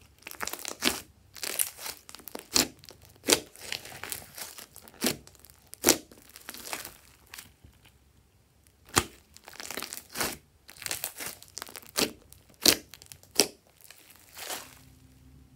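Hands squishing and stretching glossy slime: irregular sharp wet pops and crackles as trapped air pockets burst, with a short lull a little past the middle.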